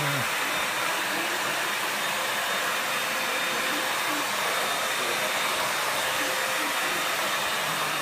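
Vacuum cleaner running steadily: an even rush of motor and air noise with a thin, constant whine.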